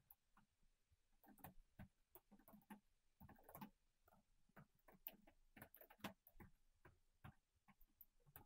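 Faint computer keyboard typing: quick, irregular key clicks.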